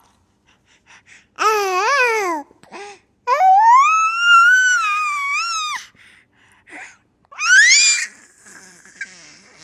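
Baby squealing and babbling in three separate high-pitched calls: a wavering one about a second and a half in, a long held squeal of about two and a half seconds, and a short rising squeal near the end.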